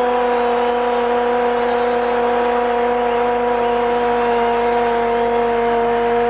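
Argentine TV commentator's long drawn-out goal cry, one vowel held on a nearly steady pitch that sags slightly, over the noise of a cheering stadium crowd.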